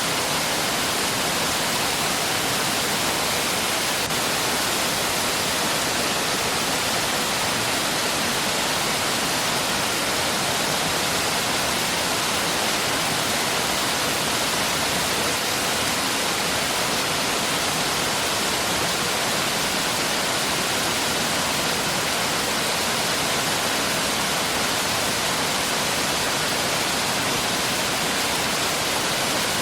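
Mountain stream rushing steadily over rocks, an even hiss of water with no changes.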